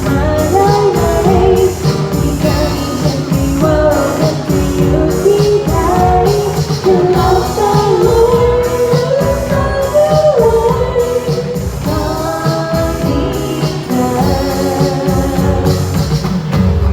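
A band playing a Thai pop song: a sung melody over bass and a steady drum beat.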